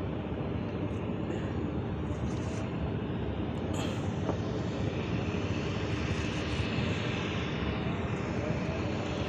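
Steady low engine drone that does not change. A single sharp click comes about four seconds in.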